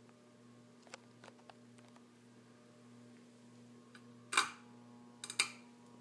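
Alaska 52" ceiling fan's motor humming faintly and steadily as the blades turn, with sharp clicks about four seconds in and again a second later.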